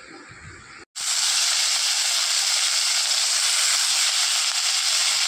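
Sliced ivy gourd (kundri) sizzling in hot oil in a kadai, a loud, even frying hiss that starts abruptly about a second in.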